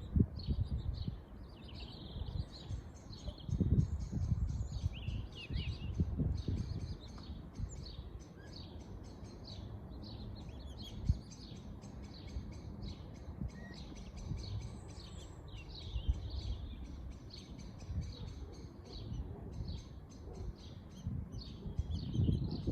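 Birds chirping rapidly and continuously in high, short calls, over bursts of low rumble.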